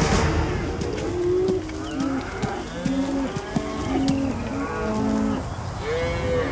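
Several large animals lowing, with overlapping drawn-out moo-like calls that follow one another.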